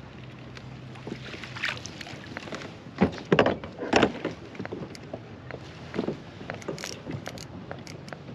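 Knocks and clatter on a plastic Hobie fishing kayak as gear is handled and the angler moves about and stands up, with a few loud thumps about three to four seconds in.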